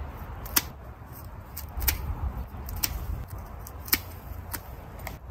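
Hand pruning shears snipping through woody rosemary stems: about six sharp snips, roughly one a second, over a low steady rumble.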